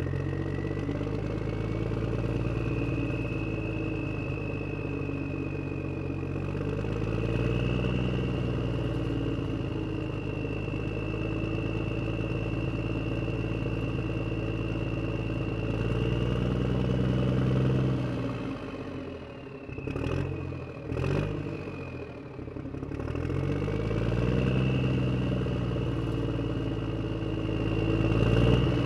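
A motor engine running, its pitch rising and falling several times, with a steady high whine above it. A few sharp clicks come in a short lull about two-thirds of the way through.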